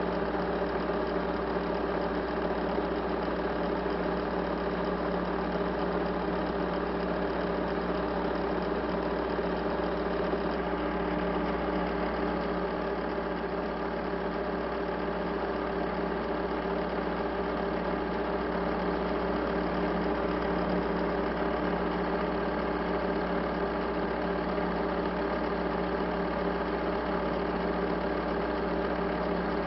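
A steady, unchanging mechanical hum made of several fixed tones.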